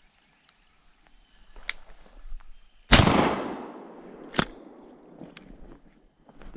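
A single shotgun shot about three seconds in, its echo dying away slowly through the woods, followed a second and a half later by one short sharp click. Before the shot, faint rustling and snapping of brush.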